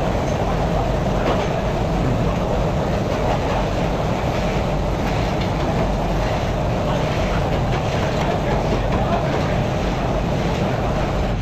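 Steady, loud mechanical running noise that holds level throughout, with no rhythm or change.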